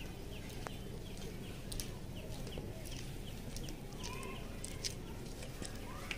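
Small birds chirping in short, quick repeated calls, mixed with light scattered clicks.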